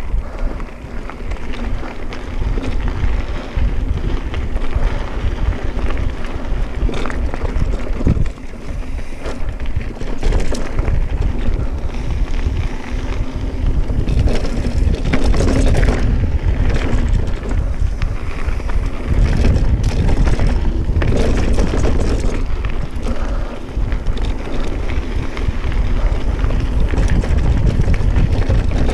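Specialized Stumpjumper mountain bike riding a dirt trail: wind buffeting the microphone over the rumble of the tyres, with scattered clicks and knocks from the bike rattling over the ground.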